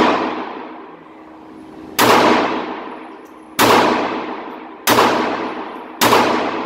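Glock 42 .380 pistol firing four single shots, a little over a second apart, each followed by a long echo off the concrete walls of an indoor range.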